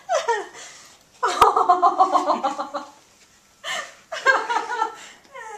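People laughing in several bursts, the longest lasting well over a second.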